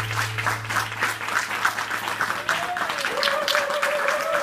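Audience applauding, with a low note dying away in the first second. In the second half a single long held call rises over the clapping.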